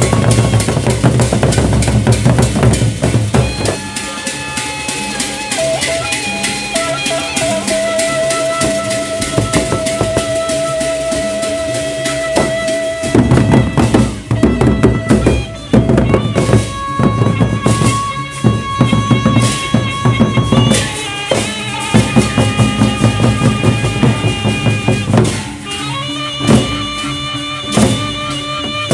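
Gendang Beleq ensemble playing: rhythmic drumming on the large drums under long held pitched tones, with heavier drum strokes in the middle and near the end.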